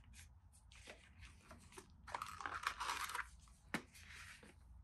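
Gloved hands rustling and scraping against a cardboard phone box while lifting the plastic wall charger out of its tray. The loudest stretch of rustling comes about halfway through, and there is one sharp click a little later.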